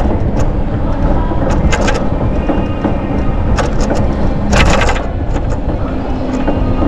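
Wind buffeting the microphone while cycling, a loud steady low rumble, with short clicks and clatters from the ride. The loudest clatter comes about four and a half seconds in.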